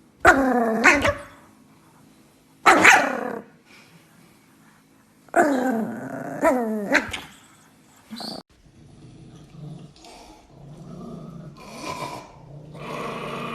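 A dog barking and growling: about five loud, drawn-out barks that fall in pitch in the first eight seconds, then quieter, rough grumbling.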